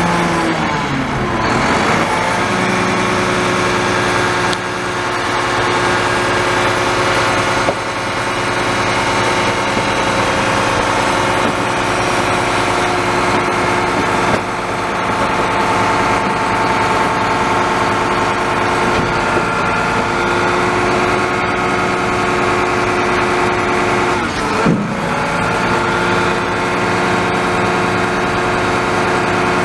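Garbage truck's diesel engine running steadily at close range. Its pitch dips and climbs back about 25 seconds in.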